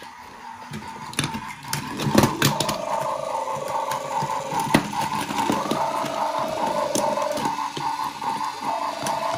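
A child's coin bank toy sounding a pulsing electronic tone and short tune. Sharp clicks come over it as coins are dropped in, several of them in the first few seconds.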